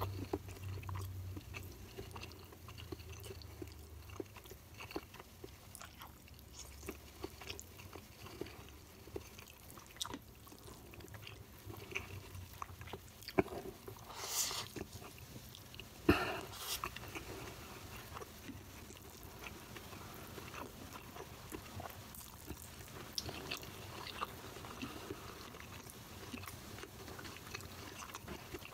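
Close-miked chewing of rice and vegetables eaten by hand, with many small mouth clicks, and a short louder hiss about fourteen seconds in.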